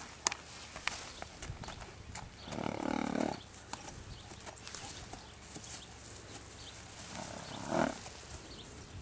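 A Thoroughbred horse walking on dirt and grass, with soft hoof falls, and two short pitched calls, one about three seconds in and a briefer one near the end.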